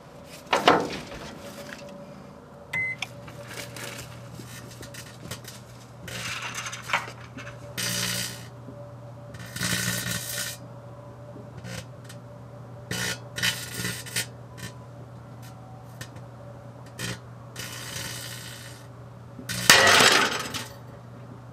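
Hamilton Beach microwave oven starting with a beep and running with a steady low hum, on a five-minute cook of live .22 LR cartridges. Over the hum come a dozen or so short crackling bursts, the loudest just before the end.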